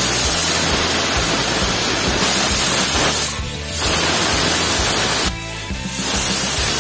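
Steam hissing loudly out of a pressure cooker's weight valve as the cooker vents at pressure, with brief dips about three and a half and five and a half seconds in.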